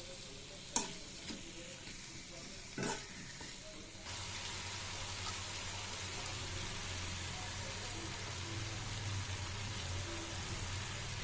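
Two sharp knocks in the first three seconds, then from about four seconds in a steady sizzle of food frying in hot oil, with a low hum underneath.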